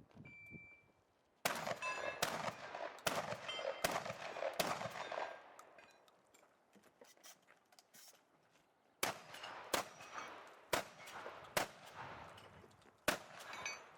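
A shot-timer beep, then a 12-gauge Benelli Supernova pump-action shotgun firing about ten shots in two strings. The shots come roughly every 0.7 to 0.8 seconds, the pace of working the pump, and some are followed by a metallic ring. A pause of about four seconds separates the two strings.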